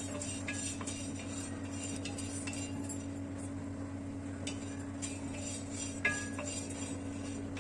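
Scattered light clinks of cloves and black peppercorns being stirred as they dry-roast on a hot tawa, over soft steady background music.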